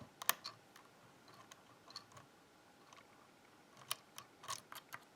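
Lock pick clicking faintly inside a ZI IKON pin-tumbler lock, scattered light metallic ticks as the pins are worked to set them again after some dropped.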